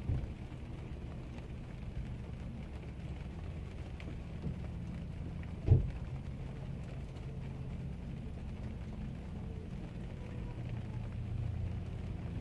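Steady low rumble of a running vehicle with rain falling, and one sharp thump a little before halfway.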